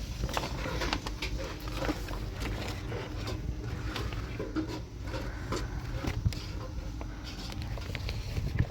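Scattered knocks, clicks and scrapes of hands at work, irregularly spaced, over a steady low rumble.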